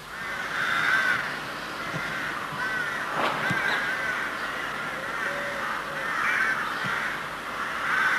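Many crows cawing at once, short harsh calls overlapping throughout, with a single knock a little over three seconds in.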